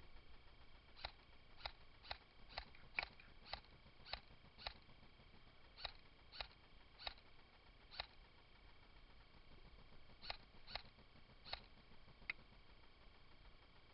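Airsoft guns firing single shots, about sixteen sharp clicks in a loose, uneven rhythm roughly two a second, with a pause of about two seconds before the last few.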